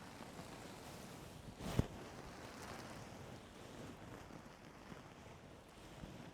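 Close-miked ear cleaning: a tool rubbing and scraping in the ear canal, heard as a steady whooshing rustle, with one sharp, louder crackle just under two seconds in.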